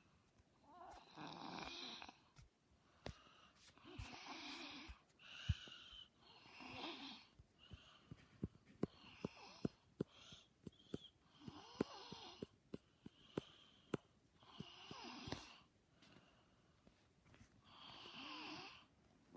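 Snoring in slow, regular breaths, a wheezy snore roughly every two to three seconds. Short sharp clicks are scattered between the snores, mostly in the middle.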